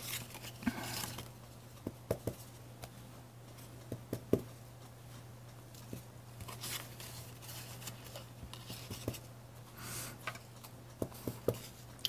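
Soft scattered taps and light paper rustles as a small rubber stamp is inked on an ink pad and pressed onto paper tags, the tags shuffled by hand, over a low steady hum.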